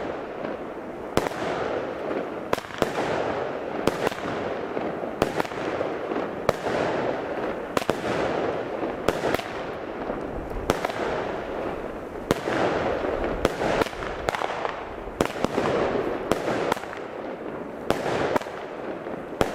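A Lesli Brutus 36-shot salute cake (consumer F2 fireworks battery) firing shot after shot, a sharp bang about every second and a half with a steady rushing noise between the shots.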